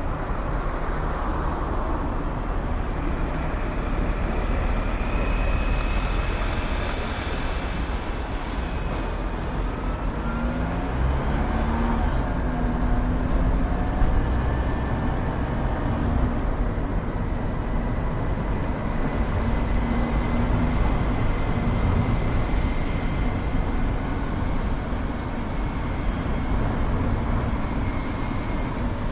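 Steady road and traffic noise from a car driving, with an engine note rising in pitch about a third of the way in.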